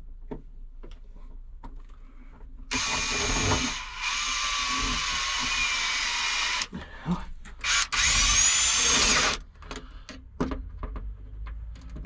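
Cordless drill-driver driving screws into a folding shelf bracket. It makes one run of about four seconds and then, after a pause, a shorter run of about a second and a half that opens with a rising whine. Light clicks of handling are heard between and around the two runs.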